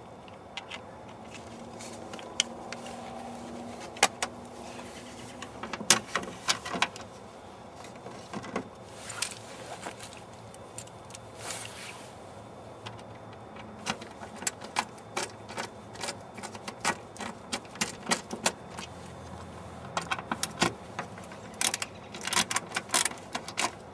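Metal clinking and clicking as screws are driven by hand through a backup camera mount and a license plate. The clicks come scattered, then in quick runs near the end.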